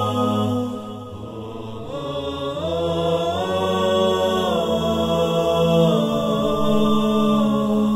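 Wordless vocal intro music: long held notes in several voices, with a quieter dip about a second in. The chord glides up about three seconds in and back down near six.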